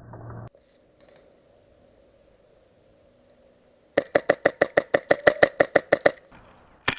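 Airsoft electric gun firing on full auto: a burst of about two seconds at roughly ten shots a second, then a second burst starting near the end.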